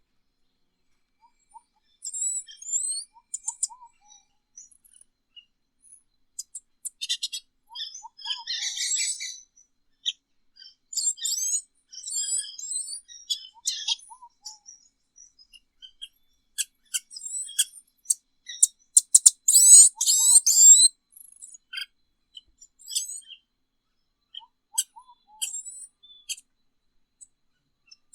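Tanagers calling with high, quick chirps and twitters in scattered bursts, with short lower notes now and then. The calls are loudest and busiest about twenty seconds in.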